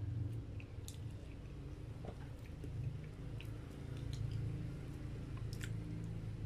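A person chewing a mouthful of moist chocolate cake up close, with a few short sharp clicks, over a low steady hum.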